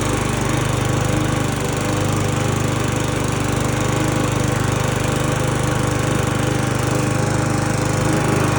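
Sabo 43-4 TS lawn mower engine running steadily under mowing load, with a fast even pulsing. It dips slightly about a second and a half in and gets a little louder near the end.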